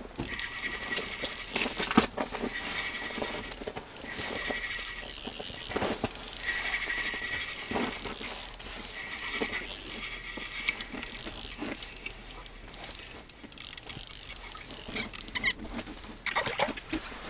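Spinning reel on an ice-fishing rod whining in short repeated bursts, about a second each, through the first ten seconds, followed by quieter handling clicks.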